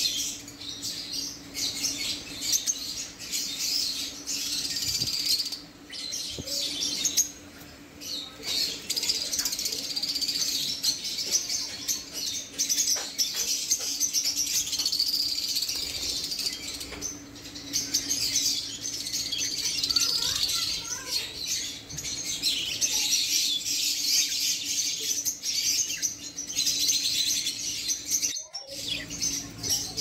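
A cage of Java sparrows chirping continuously in dense, high twittering, with wing flaps as the birds hop and flutter about. A faint steady low hum runs underneath.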